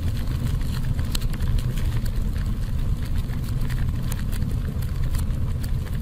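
Fire sound effect: a steady low rumble of burning flames with scattered crackles.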